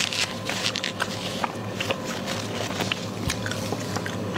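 Close-miked eating sounds: irregular wet clicks and crackles of chewing and biting, over a faint steady hum.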